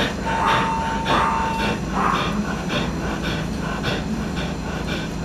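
A dog with tetralogy of Fallot panting rapidly, about three breaths a second. A steady electronic beep runs for the first second and a half or so.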